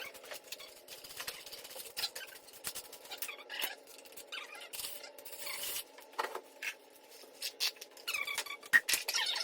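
Sped-up workshop clatter from a dirt bike being taken apart: many short clicks, knocks and rattles of hand tools, fasteners and plastic body panels, with a few brief high-pitched sped-up voices.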